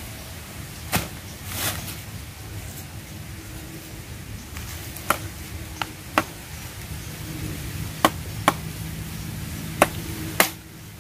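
A machete chopping at a green bamboo pole: about nine sharp, irregular chopping knocks, most of them in the second half.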